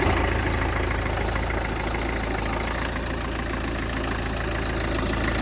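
Peugeot 406 2.0 HDi four-cylinder turbodiesel running steadily just after starting, with a high whine over it that stops about two and a half seconds in, leaving the engine idling. It runs now that the fuel pump relay's cracked solder joint and bent contacts have been fixed.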